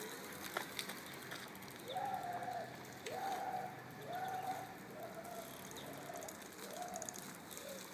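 A dove cooing: a series of six soft, even coos about a second apart, fading toward the end.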